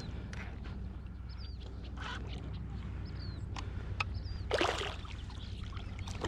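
A short splash on the water about four and a half seconds in, a largemouth bass blowing up on a topwater frog lure. Small birds chirp now and then over a steady low hum.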